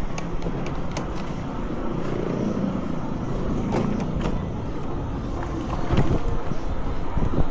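Road traffic: motor vehicles running past with a steady low rumble and tyre noise, swelling about two to four seconds in, with a few sharp clicks or knocks.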